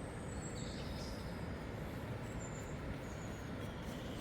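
Steady low rumble of wind and rough surf, with a few faint, short, high whistles.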